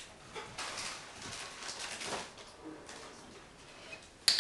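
Chesapeake Bay retriever sniffing at the scent cups of a search board, working for chanterelle scent, in soft noisy snatches. A single sharp click comes near the end.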